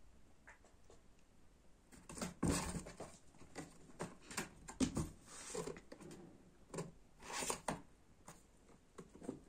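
Kittens scrabbling at a cardboard box and carpet: a run of irregular scratches and rustles that starts about two seconds in and thins out near the end.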